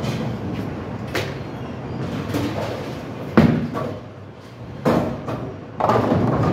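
Bowling alley sounds: a bowling ball thuds onto the lane just past halfway, the loudest knock. About two seconds later the pins crash in a longer clatter near the end.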